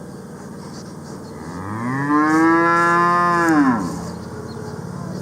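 A cow mooing once: a single long call of about two seconds that rises in pitch, holds steady, then falls away.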